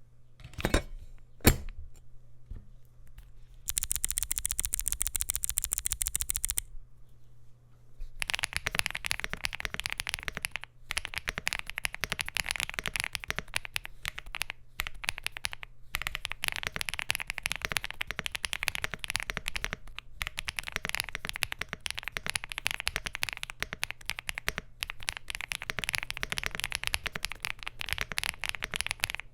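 Typing on a Bridge75 Plus mechanical keyboard with SC linear switches, an FR4 plate, double-shot PBT Cherry-profile keycaps and a gasket-mounted aluminium case. Two sharp clicks come first, then about four seconds in a fast, even run of keystrokes lasting about three seconds, and from about eight seconds on steady typing with brief pauses.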